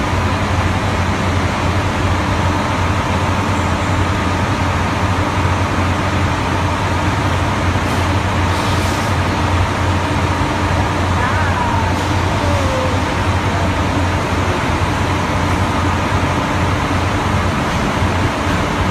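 Intercity coach's diesel engine running close by: a loud, steady low drone.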